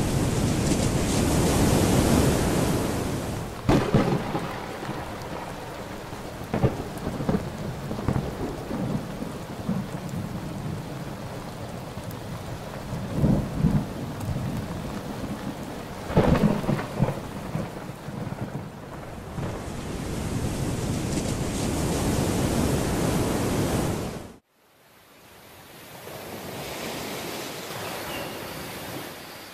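Thunderstorm: heavy steady rain with several sharp thunderclaps and rolling rumbles. It cuts off abruptly near the end, and a quieter steady hiss fades in.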